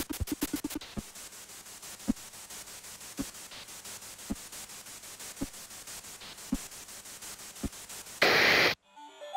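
Steady static hiss with a dull low thump about once a second, seven in all. Near the end a loud burst of static cuts off suddenly.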